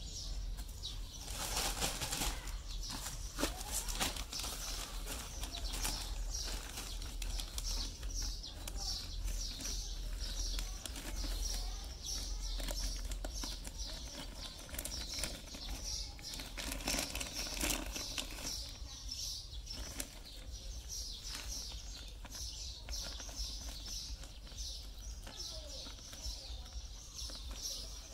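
Clear plastic bag crinkling and rustling as hands handle it and pull it down over a potted cutting, with scattered small crackles and louder rustles now and then.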